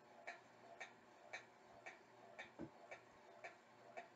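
Faint, steady ticking of a clock, about two ticks a second with softer ticks between them, and one soft low thump about two and a half seconds in.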